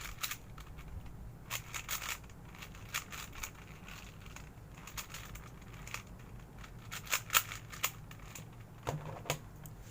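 Plastic twisty puzzle cube being handled and turned, giving irregular sharp clicks and rattles in short clusters, the loudest about seven seconds in.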